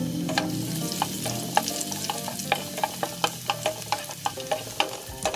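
Garlic sautéing in hot oil in a pan: a steady sizzle while a utensil stirs it, with sharp clicks and scrapes against the pan that come quickly, about four a second, in the second half.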